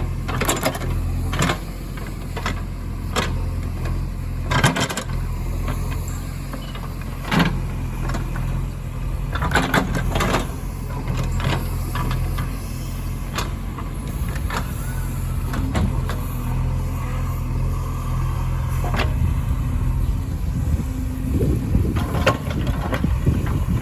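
Diesel engine of a backhoe loader and tractors running steadily, with sharp knocks and clanks every few seconds. The engine note grows rougher and more uneven near the end.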